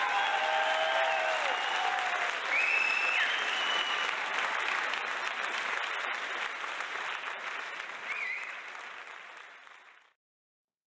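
An audience applauding and cheering, with a few short whistle-like calls over the clapping, fading away to silence about ten seconds in.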